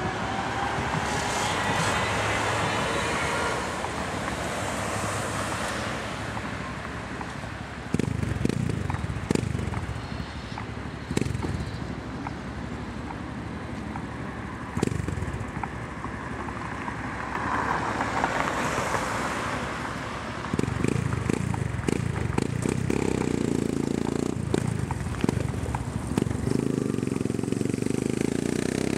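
Yamaha MT-03 motorcycle with a Takkoni aftermarket end silencer, run without its dB-eater, revving and pulling away in traffic. There are several sharp bangs in the first half, and it runs louder from about two-thirds of the way in as the bike rides past.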